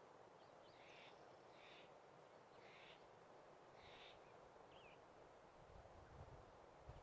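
Faint bird calls: short raspy notes repeated about once a second, with a thin chirp or two, over a soft steady background hiss. A few low rumbles come near the end.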